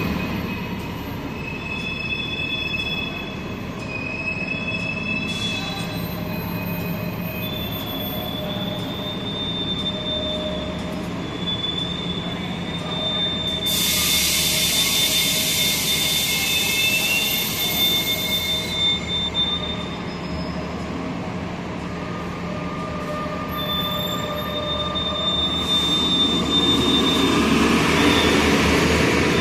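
Transit buses, among them a TANK hybrid-electric bus, moving in an enclosed concrete bus terminal, with thin, steady, high whining tones. A hiss of air lasting about five seconds comes a little before halfway through, and the running noise swells near the end as another bus pulls up.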